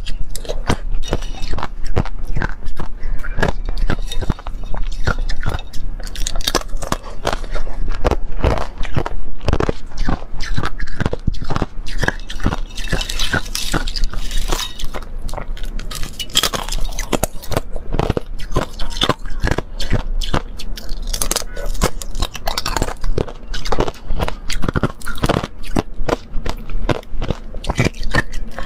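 Frozen milk ice being bitten and chewed: a dense, irregular run of crisp crunches and cracks.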